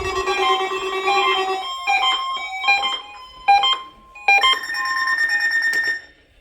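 Several weather alert radios sounding their electronic alarms at once: overlapping beeping tones of different pitches. A low buzzing tone stops about a second and a half in, and a steady high tone cuts off near the end.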